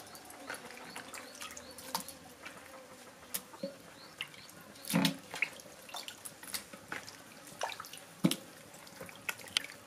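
Washed fish pieces being lifted out of a basin of water and dropped into an aluminium pot: scattered drips and splashes with soft knocks, the loudest about five seconds in and again near eight seconds.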